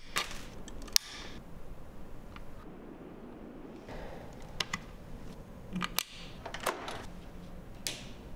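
Sharp clicks and snaps a second or more apart, with rustling between them, from small electronic parts being handled by hand: chips pressed into their sockets on a computer logic board and a cable plugged into the back of the computer.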